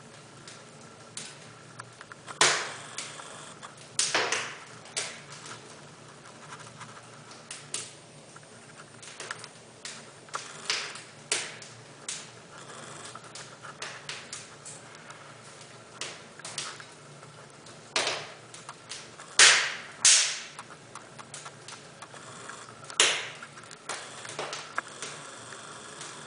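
Bricklaying: a mason's trowel and bricks knocking and tapping as bricks are set in mortar, in irregular sharp knocks, a few much louder than the rest.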